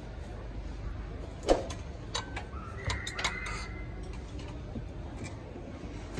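A few light clicks and clinks over a steady low hum: one sharper click with a short ring about a second and a half in, then a quick cluster of small clicks a second or so later.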